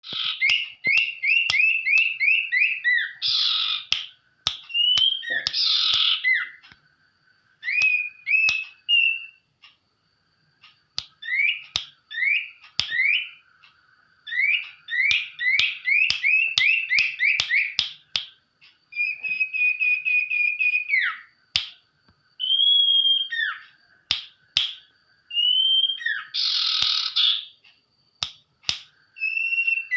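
A songbird kept in Indonesia under the name sirtu, singing a chattering song in the style of a white-rumped shama (murai batu): quick runs of rising whistled notes, some held trills, a few harsh rasping calls, and short pauses, with scattered sharp ticks.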